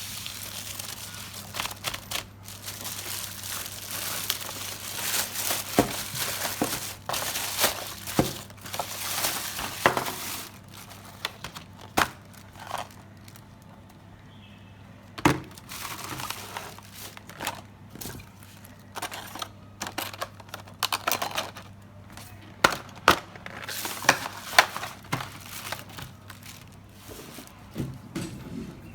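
Packaging crinkling as a parcel is unwrapped, with many sharp clicks and knocks in between.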